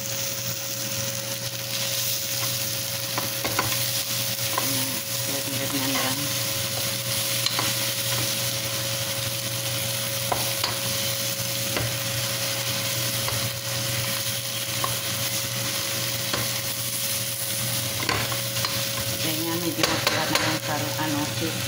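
Chicken pieces sizzling steadily in hot oil in a nonstick pot, with scattered light clicks and a steady hum underneath.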